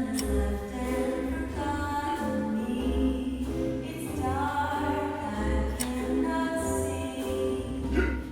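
Background music: choir-like voices singing held notes over a low pulsing bass.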